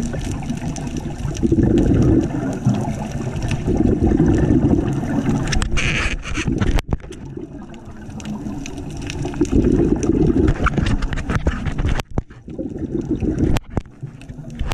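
A scuba diver breathing underwater through a regulator: exhaled bubbles rumble in bursts every few seconds, with a brief hiss between them and a few sharp clicks.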